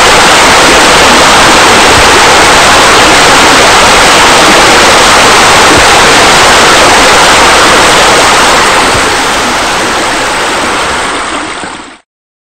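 A loud, steady rush of running water. It fades off over the last few seconds and then cuts to silence.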